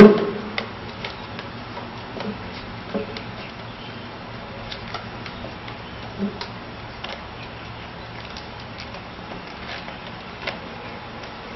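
Faint steady background noise with a few light ticks and soft knocks scattered through it.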